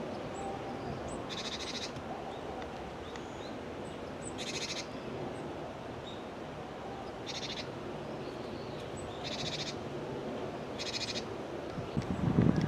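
A small songbird gives five short, rapid trills of about half a second each, spaced a couple of seconds apart, over steady outdoor background noise. A louder low-pitched sound comes in near the end.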